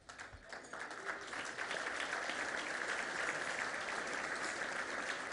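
Audience applauding. The clapping builds over the first second or so, then holds steady.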